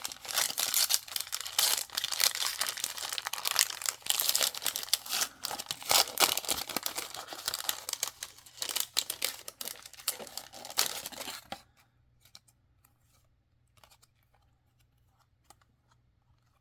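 A trading-card pack's wrapper being torn open and crinkled in the hands: a dense, uneven crackling and tearing that stops abruptly about 11 seconds in. It is followed by near silence with a few faint ticks.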